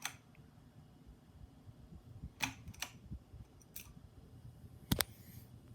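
Hampton Bay Glendale ceiling fan running on medium speed with a faint, steady low hum. A few sharp clicks sound over it, the loudest a double click about five seconds in.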